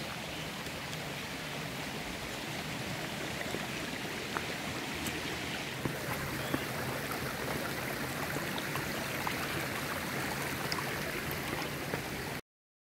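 A stream running steadily, a little stronger about halfway through, with a few faint ticks over it; the sound cuts off suddenly near the end.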